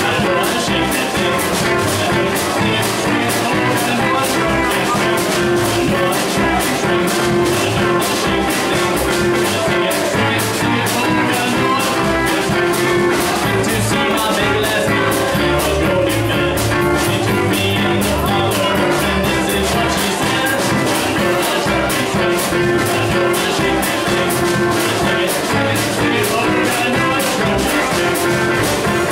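Small swing band playing live: a clarinet melody over plucked upright bass, strummed acoustic guitar and drums keeping a steady beat, with no singing.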